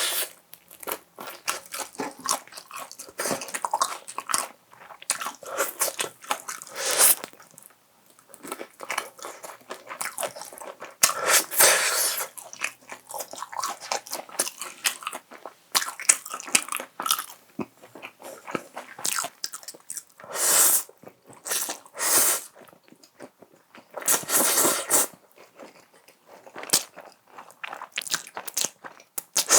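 Close-miked eating: crunchy bites into crisp fried chicken and chewing, in irregular bursts, with a few longer, louder bursts in the middle and latter part.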